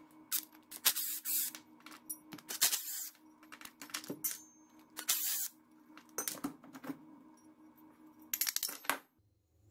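Metal parts of a model jet turbine engine clinking, knocking and scraping in a series of short, loud bursts as they are handled and worked apart, with a cluster of quick taps near the end.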